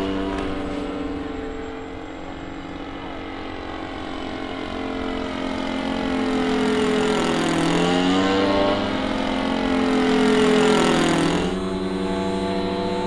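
A radio-controlled model plane's engine and propeller running at flying speed. The pitch bends down and back up as the plane passes, around eight seconds in.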